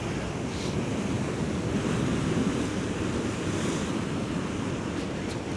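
Sea surf washing against a rocky shore, swelling about two seconds in and easing off, with wind buffeting the microphone.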